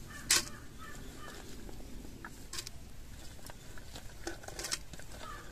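Sliced onions dropped by hand from a steel plate into a clay pot, with one sharp click about a third of a second in and scattered soft ticks after.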